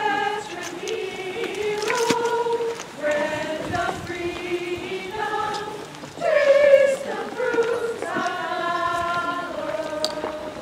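Community choir singing in long held notes, phrase after phrase, with short breaks between the phrases.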